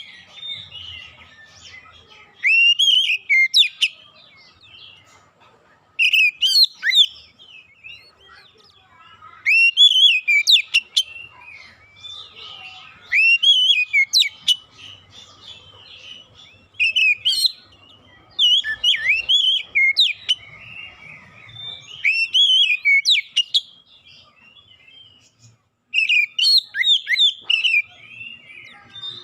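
Oriental magpie-robin (kacer) singing in repeated phrases of loud, whistled notes that glide up and down, one phrase every three to four seconds, about eight in all. It is a recorded lure song played to trigger other magpie-robins into song.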